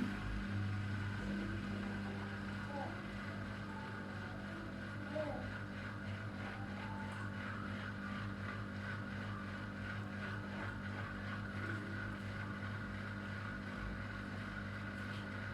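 Miele W1 washing machine before the spin, giving off a steady mechanical hum with a constant pitch. This is the strange noise that a service engineer put down to the machine not standing level or not being used properly. The hum cuts off at the very end.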